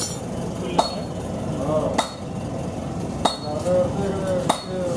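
Hammer blows on steel, as in hand-forging billhook blades: four sharp, ringing strikes about a second and a quarter apart.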